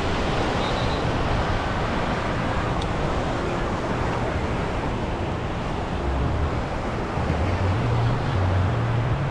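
Wind buffeting the microphone over the steady wash of surf on a beach, the surf getting fainter after the first few seconds.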